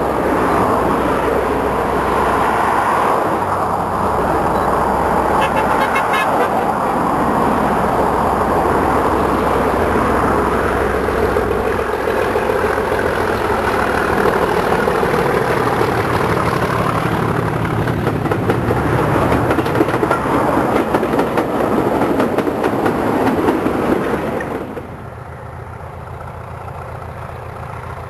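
Diesel locomotive engine working hard as it hauls a passenger train close past, loud and steady. About 25 seconds in the sound drops suddenly to a quieter, more distant engine sound.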